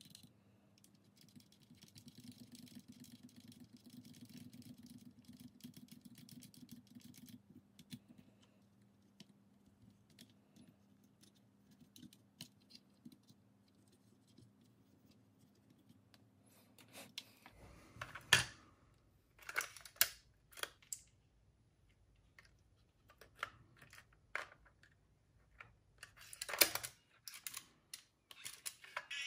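A faint steady hum with fine rapid ticking. Past the middle it gives way to a series of sharp clicks and knocks, as of a small device and tools being handled; the loudest come near the middle and near the end.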